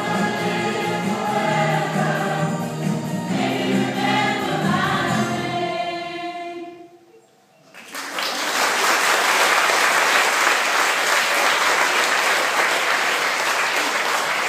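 A group of singers with music ends a song on a held chord that fades out about six seconds in; after a moment's hush, the audience applauds loudly.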